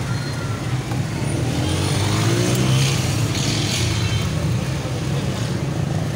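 Steady low rumble of street traffic and engines, with faint voices mixed in.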